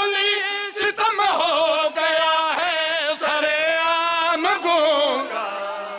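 A man's voice singing long, wavering held notes in the chanted melody of a zakir's elegy recitation at a majlis. A short break comes about a second in, and the voice tails off quieter near the end.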